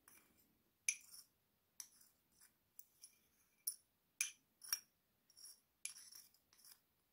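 Metal teaspoon clinking and scraping against a small glass dish while rusty nails are scooped out, a series of about a dozen irregular, sharp clinks.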